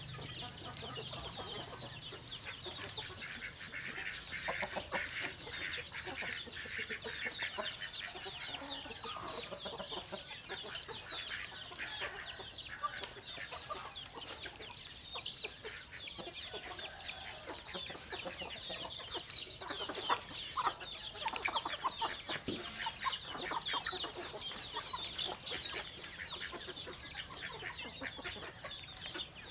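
A flock of chickens clucking and chirping together in a continuous, dense chorus of short calls, with many short clicks mixed in.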